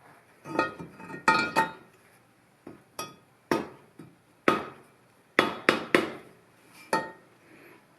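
A small hammer tapping on metal, about a dozen sharp, irregularly spaced strikes, each with a short metallic ring.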